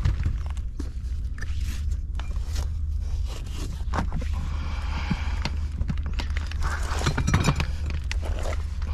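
Clicks, knocks and scraping as hands work the metal clamp and tilt bracket of a Mariner four-stroke outboard motor, over a steady low rumble. The handling noise is busiest about halfway through and again near the end.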